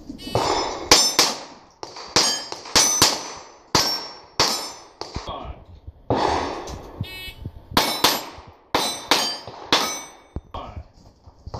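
A string of pistol shots fired at steel targets, each hit answered by the high ringing clang of a struck steel plate, with short pauses between groups of shots.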